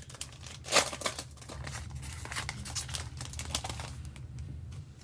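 Plastic trading-card pack wrapper being torn open and crinkled by hand, with irregular rustles and crackles, the loudest about a second in.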